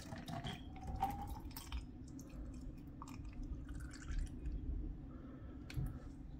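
Coconut water poured from a carton into a tall glass, a faint trickle and drip of liquid filling the glass. The pour stops near the end.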